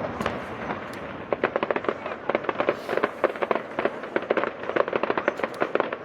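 Fireworks display going off: a rapid run of sharp cracks and crackling bangs, several a second.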